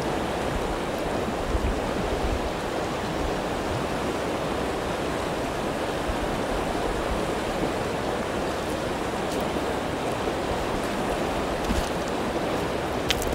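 Steady rushing of a shallow river flowing over a pebble bed, with a couple of sharp clicks near the end.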